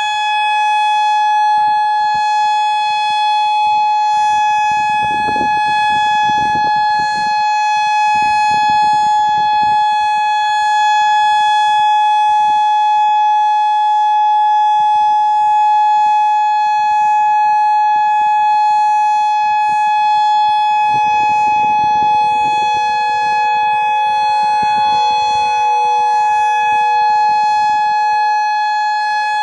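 Federal Signal Modulator 6024 outdoor warning siren sounding a loud, steady tone at one unchanging pitch, the alert signal of a monthly siren test. Low rumbles come in about 5 seconds in and again about 21 seconds in.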